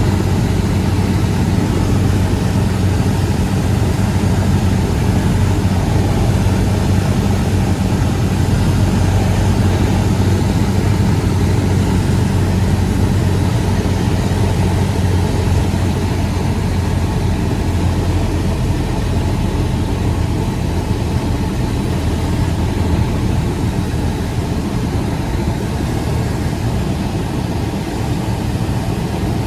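Cessna 172 engine and propeller running steadily, a continuous low drone, easing slightly in the last few seconds.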